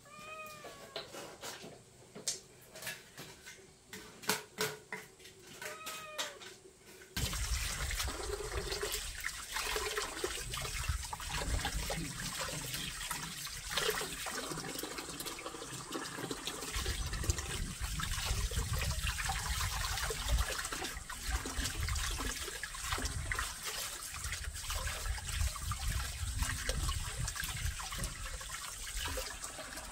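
Running water pouring into a plastic basin, splashing as hands swish and rinse leafy greens. Before that, for the first few seconds, a cat meows twice amid scattered crackles from a wood fire.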